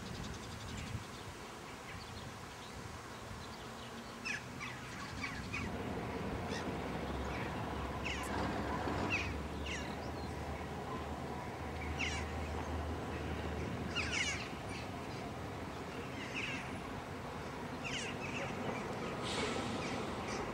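Birds chirping in short calls every second or two, over faint background noise, with a low steady rumble through the middle.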